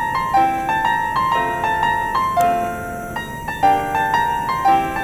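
Background music: a gentle piano melody with chords, each note struck and fading.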